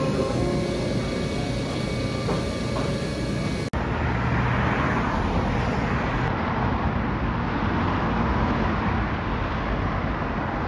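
Road traffic noise: a steady wash of cars passing on a city street, strongest after a cut about four seconds in. Before the cut there is a steadier, quieter hum with a few faint held tones.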